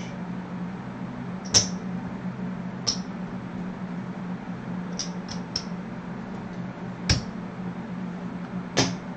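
Casino chips clicking as they are set down and stacked on a craps table: about seven short, separate clicks a second or more apart, over a low steady hum.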